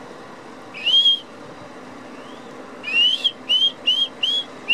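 A person whistling: one longer rising whistle about a second in, then a quick run of five short rising whistles.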